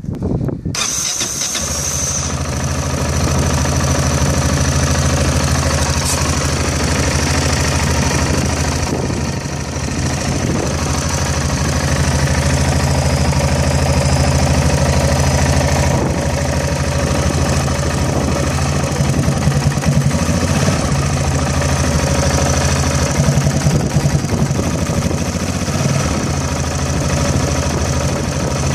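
Yamaha XT660's single-cylinder four-stroke engine starting within the first second, then idling steadily.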